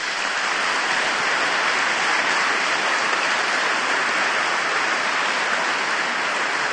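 A large seated audience applauding, steady dense clapping throughout.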